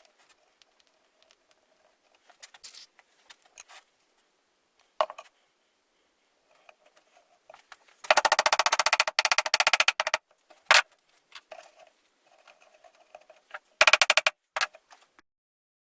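Power screwdriver driving screws: two bursts of fast, even rattling, the first about two seconds long and the second about half a second, with a few sharp clicks between.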